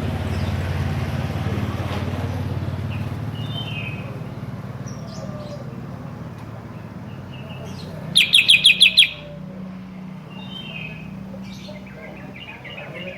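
Sooty-headed bulbul calling in short chirps, with a loud, rapid run of about seven notes about eight seconds in. A low rumble fades out over the first few seconds.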